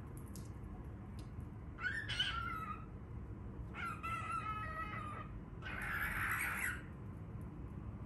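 Baby cockatiel calling three times, each call about a second long; the first two are clear pitched calls and the last is rougher and raspier.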